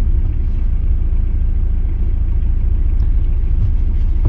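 Steady low rumble of a car's engine and tyres, heard from inside the cabin while it moves slowly in a queue of traffic.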